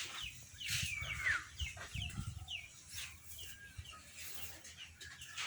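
Chickens clucking and chirping in a series of short falling calls, a few a second, with one longer falling call about a second in.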